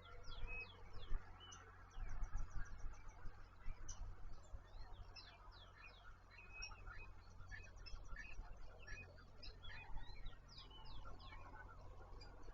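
Several small birds chirping and calling in quick, overlapping short notes, over a steady low rumble.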